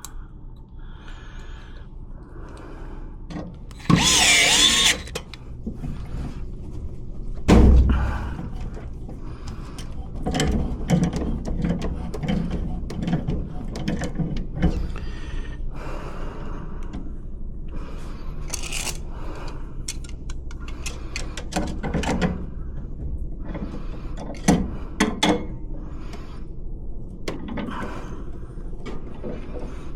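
Tool work on a furnace: a cordless drill runs briefly about four seconds in, a loud knock follows a few seconds later, then scattered clicks and clatter of metal parts and tools being handled.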